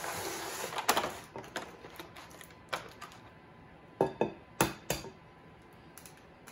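A short rustle, then scattered sharp clicks and knocks as a clear plastic egg carton is set down and opened. Near the end come two hard knocks close together: an egg being tapped on the rim of a glass mixing bowl to crack it.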